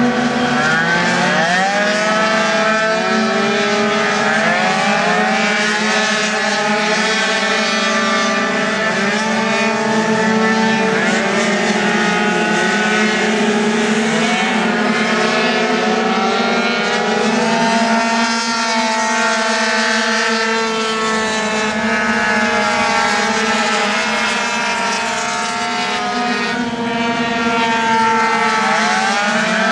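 A pack of 50cc two-stroke racing scooters running round a track, several engines at once whining and rising and falling in pitch as they brake and accelerate through the corners, over a steady low drone.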